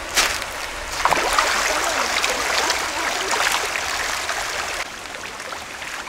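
Shallow, clear river running and splashing over rocks, louder from about a second in until near the end.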